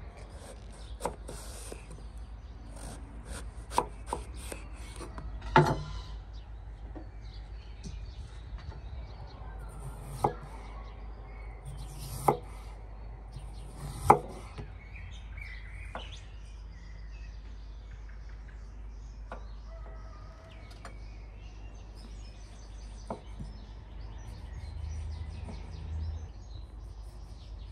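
Kitchen knife cutting vegetables on a wooden board: irregular sharp knocks as the blade meets the board, most of them in the first half, with birds chirping in the background.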